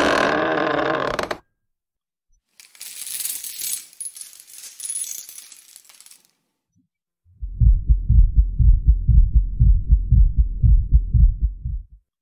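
A run of cinematic sound effects: a pitched effect cutting off about a second in, then a noisy metallic rattling that fades away, then a fast series of deep low thuds, several a second, lasting about four and a half seconds.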